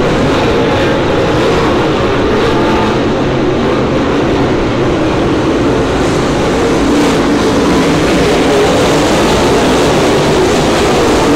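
A field of dirt late model race cars racing around a dirt oval, their V8 engines making a loud, continuous drone whose pitch wavers as the cars pass.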